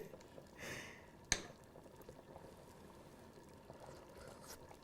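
Quiet tasting sounds with a spoon and a pot of chili: a short soft hiss about half a second in, then a single light click of the spoon a little over a second in, followed by faint room tone.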